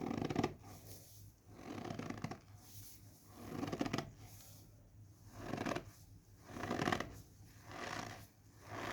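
Cornstarch being squeezed in the hand, making a squeaky crunch with each press. There are about eight squeezes, roughly one a second, with short pauses between them.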